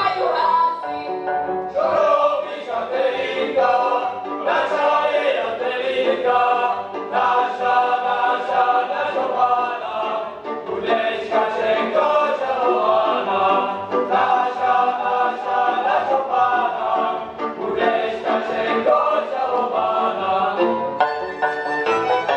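Cimbalom band of violins, double bass and cimbalom accompanying a group of young singers in a folk song. Near the end the singing gives way to the instruments.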